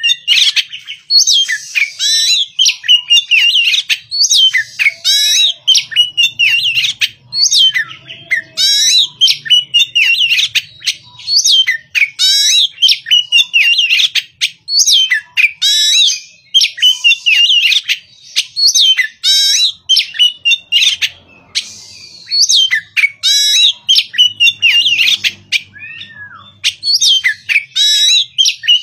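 Caged oriental magpie-robin singing loudly: a rapid, unbroken run of short, varied, high whistled phrases with sweeping pitches, separated by brief gaps.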